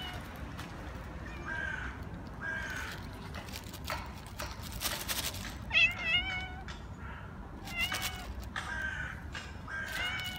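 A tortoiseshell-tabby cat meowing repeatedly, about six short meows. The loudest comes about six seconds in, with a wavering pitch.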